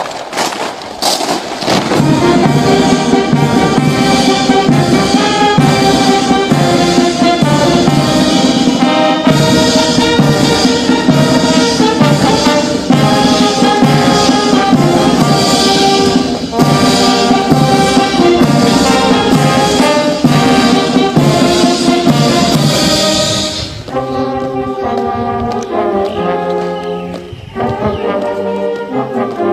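A brass band playing a march with a steady drumbeat. Near the end the drums stop and the brass carries on more softly.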